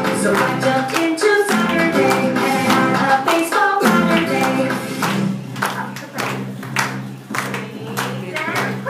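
Recorded children's song with guitar. About five seconds in the music thins out and clapping takes over.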